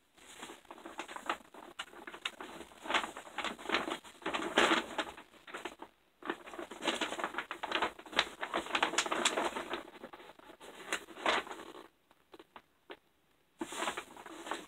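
Large gift bag rustling and crinkling in irregular bursts as a person climbs into it, with a brief pause about six seconds in and a longer one near twelve seconds.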